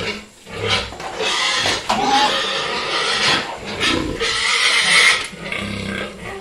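Pigs in their pens squealing and grunting in a series of loud, repeated calls.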